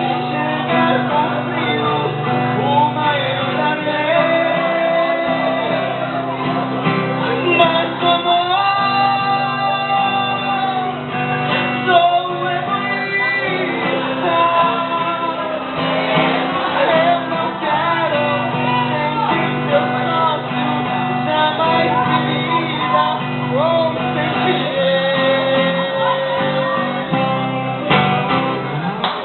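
A song with singing and guitar, with people shouting and singing along.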